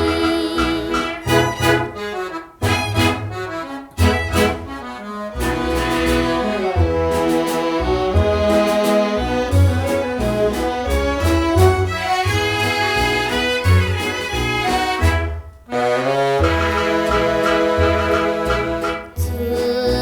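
Band music from a vintage vinyl-era Taiwanese pop record, melody instruments over a steady pulsing bass beat. It briefly drops out about 2 s, 4 s and 16 s in.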